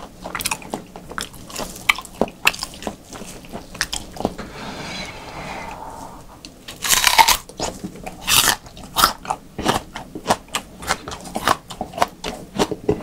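Close-up chewing and biting of raw beef: wet mouth clicks and smacks at an uneven pace, with a louder burst of noise about seven seconds in.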